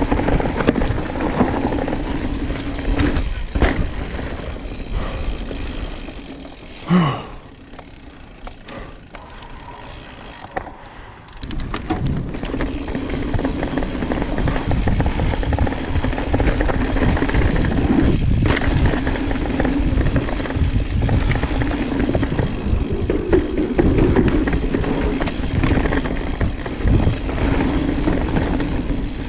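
Mountain bike rolling down a rocky trail: tyres rumbling over rock and dirt and the bike clattering over the bumps. It eases off for a few seconds about a quarter of the way in, then picks up and stays loud.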